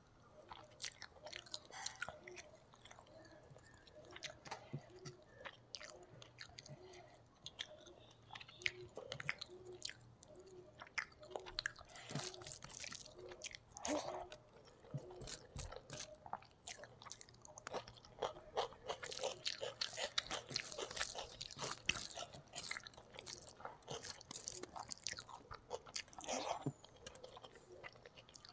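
Close-miked chewing and wet mouth sounds of rice and fish curry, eaten by hand, with soft squelching of fingers mixing rice into the curry. The sounds come as uneven clicks and crackles, thickest in two stretches, one around the middle and one in the second half.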